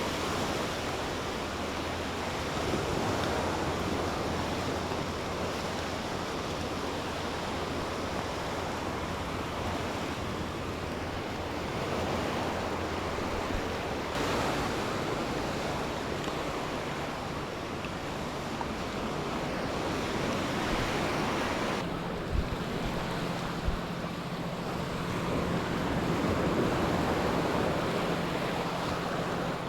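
Mediterranean surf washing onto a beach, swelling and easing, with wind on the microphone and a faint steady low hum underneath.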